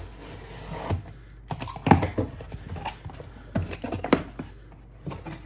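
A cardboard box being opened and its packaging handled: irregular clicks, taps and rustling, with the sharpest knock about two seconds in.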